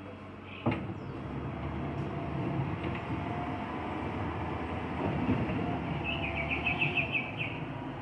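Bulldozer working: its diesel engine runs under load with the steel tracks clanking. There is a sharp knock about a second in and a rapid run of squeals near the end.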